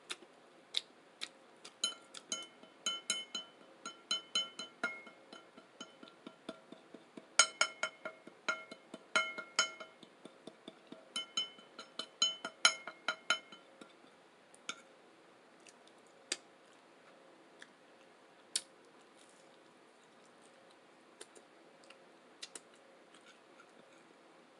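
Cutlery tapping and clinking against a plate while food is cut and picked up. Quick clicks with a short, bright ring come in busy clusters over the first half, then thin out to a few single taps.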